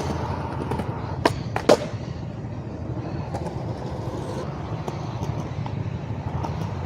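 Skateboard wheels rolling, with a sharp tail pop a little over a second in and the board landing about half a second later, then rolling on.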